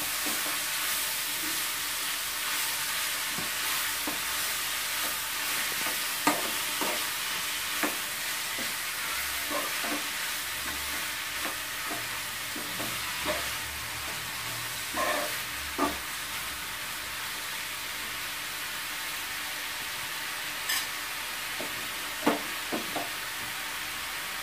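Grated beetroot and onion frying with a steady sizzle in a nonstick kadai, stirred with a steel spoon that scrapes and knocks against the pan every so often.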